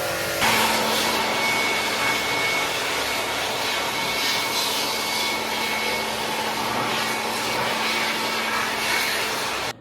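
Steady, loud whooshing noise with a faint steady hum running through it, cut off abruptly near the end.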